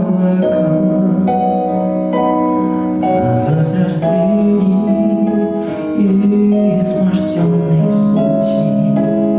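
Music: a song with held sung notes over a piano accompaniment.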